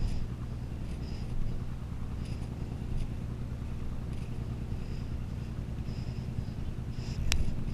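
Fishing boat's engine running with a steady low hum, and a single sharp click about seven seconds in.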